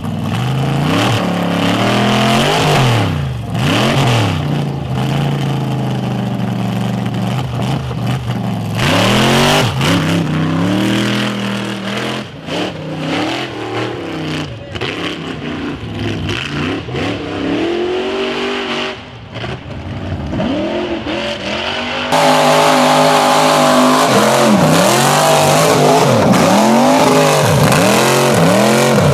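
Rock bouncer race buggy engine revving hard over and over, its pitch sweeping up and dropping back repeatedly. About three quarters of the way through the sound jumps suddenly to a louder, closer engine.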